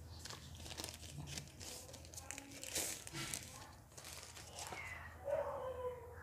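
Crinkling and rustling of the protective packaging sheet as a pen tablet is lifted out of its cardboard box, in irregular crackles. A brief vocal sound comes near the end.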